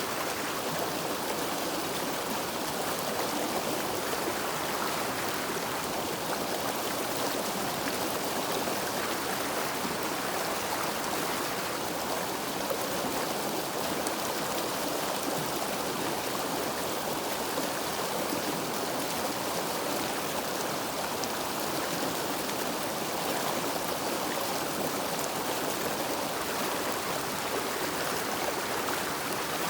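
River water flowing over rocks: a steady rushing and babbling.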